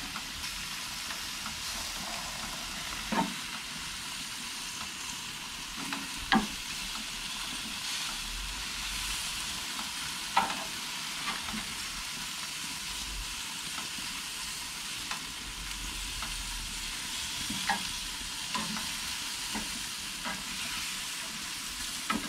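Chicken kabobs sizzling steadily on a hot grill, with a few sharp clicks and taps as the skewers are turned over.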